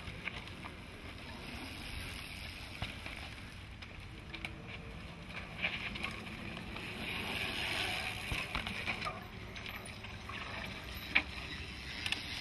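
Mountain bikes riding past on a dirt singletrack descent: tyres on dirt with rattles and sharp clicks, getting louder in the second half and loudest around ten seconds in.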